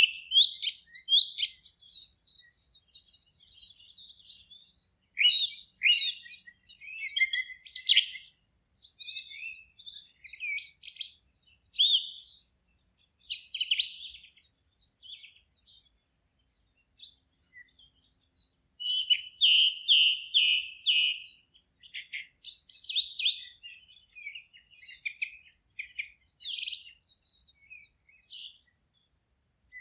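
Forest songbirds singing and chirping, several short song phrases overlapping with brief gaps, including a quick run of repeated notes about two-thirds of the way through.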